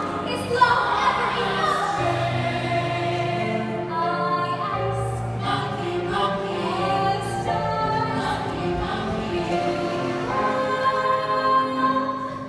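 Musical theatre number sung by a chorus with instrumental accompaniment, ending on a long held note near the end.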